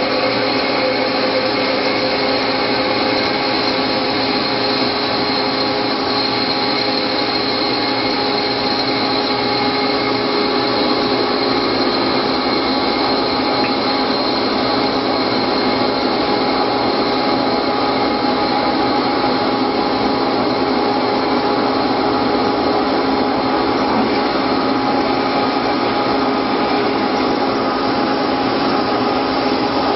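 CNC lathe turning an aluminium bar under flood coolant: a steady rushing noise from the spinning spindle, the cut and the coolant spray, with a few steady whining tones held throughout.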